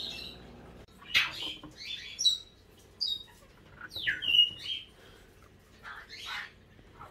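A steady low hum of an aquarium filter that cuts off about a second in, then scattered short high chirps and squawks with gliding pitch, like bird calls.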